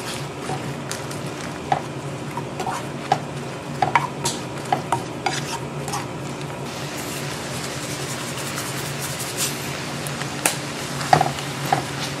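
Green peppers sizzling in soy sauce in a ceramic-coated frying pan while a spatula stirs and tosses them, with irregular clicks and scrapes of the spatula against the pan over a steady frying hiss.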